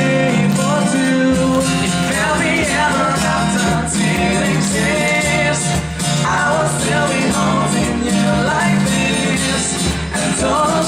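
Pop music with a male singer over guitar accompaniment; a bass line comes in about a second in.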